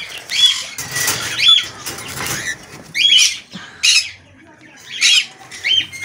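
Cockatiels giving short, rising-and-falling squawking calls about once a second, with a stretch of rustling and wing flapping in the first half.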